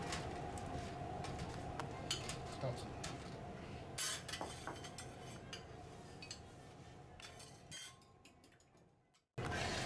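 Metal teppanyaki spatulas clinking and scraping on the steel griddle and utensils, over a steady hum of kitchen noise. The clatter thins out and fades near the end, and a brief burst of noise comes just before it stops.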